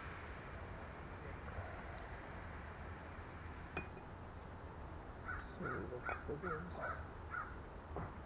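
A bird giving a quick run of about seven short, harsh calls in the second half, over a steady low hum, with a single sharp click a little before the calls begin.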